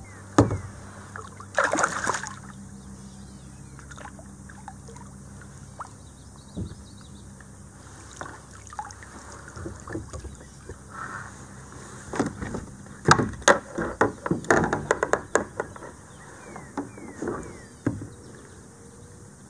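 Scattered knocks and splashes as a hooked common carp is brought alongside a kayak and lifted out of the water by hand. There is one sharp burst about two seconds in and a dense cluster of them a little past halfway.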